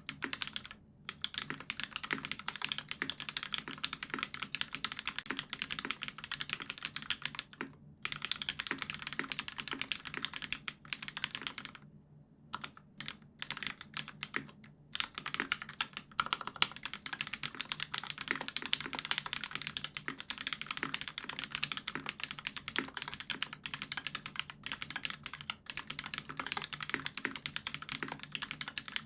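Continuous typing on a custom mechanical keyboard with lubed Hyperglide Cherry MX Black linear switches on an aluminium plate, under GMK keycaps: a dense run of keystroke clacks, with brief pauses about a second in, near eight seconds and a few around twelve to fifteen seconds.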